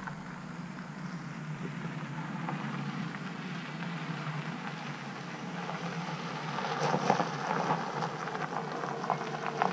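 A car driving slowly up an unpaved road toward the listener, its tyres crunching on the loose surface and growing louder as it nears, with sharp crackles in the last few seconds.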